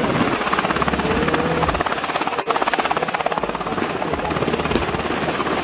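Helicopter flying close by, its rotor blades chopping in a fast, steady beat; the sound dips for an instant about two and a half seconds in.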